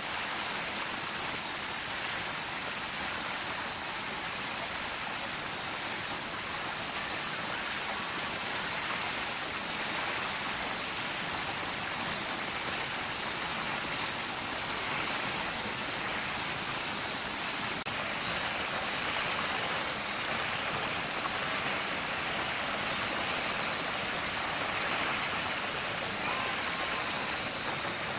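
A steady, high-pitched sizzling drone of a summer cicada chorus that never lets up, with a few faint short chirps now and then.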